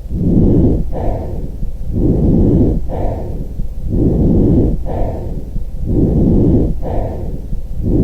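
Recorded lung breath sounds, as heard through a stethoscope. A rushing breath repeats about every two seconds, each cycle a longer and a shorter segment, about four breaths in all.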